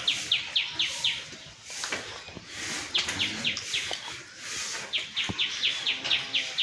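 A bird calling: rapid series of short, falling chirps, about four a second, coming in three bouts with brief pauses between them.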